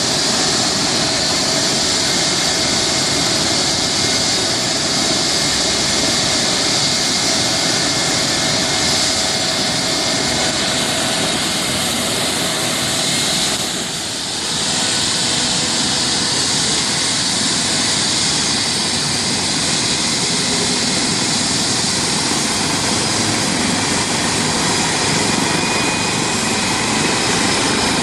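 Helicopter running loud and steady, a dense rushing noise with a faint steady whine in it, dipping briefly about halfway through.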